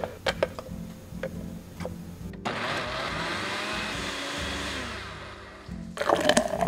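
Countertop blender running for about three and a half seconds in the middle, starting and stopping abruptly, with clicks before it and a clatter of knocks just after it stops.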